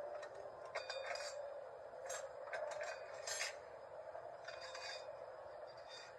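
Light metallic clinks, scrapes and rubbing of transmission parts and tools being handled during a 6T70 automatic transmission rebuild, scattered irregularly over a steady hum.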